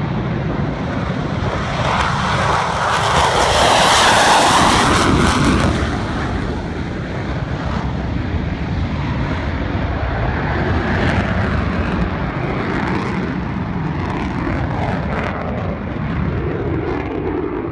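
Jet engine noise from F-22 Raptor fighter jets: a loud, even rush that swells to a peak about four seconds in, then carries on steadily.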